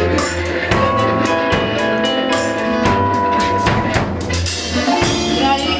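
Live dark-cabaret band playing an instrumental passage: a drum kit keeps a steady beat under electric guitars holding sustained notes and a steady low bass line.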